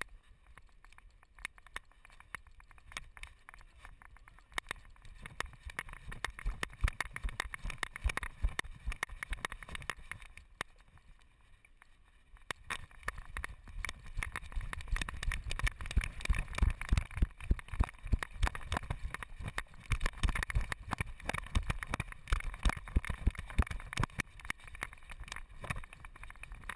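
Quick, irregular knocks and rattles of a dog-chest-mounted GoPro Hero 2 jolting with each stride of the trotting dog, under a low rumble. The rumble and knocking grow louder and denser about halfway in, as the dog runs onto the beach.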